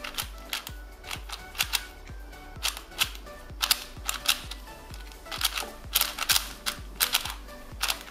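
YJ Guansu 4x4 speed cube being turned by hand, its layers snapping with irregular, really clacky clicks. Background music with a steady beat runs underneath.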